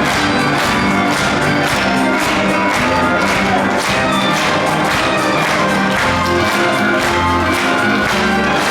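A live theatre orchestra playing upbeat finale music with a steady beat of about two strokes a second, with audience cheering mixed in.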